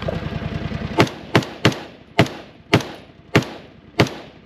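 Rifle shots fired in a quick string on a match stage: seven sharp shots at an uneven pace over about three seconds, starting about a second in, each with a ringing tail. A low steady rumble is heard under the first second.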